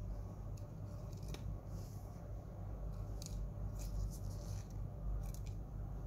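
Handling noise: a few short, crackly rustles scattered through, over a steady low rumble, as the clothes and the phone are moved about.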